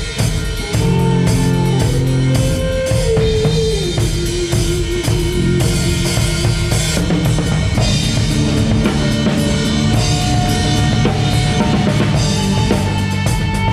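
Live band playing a song: drum kit with kick and snare over a strong bass line, with held melodic lines that slide between notes.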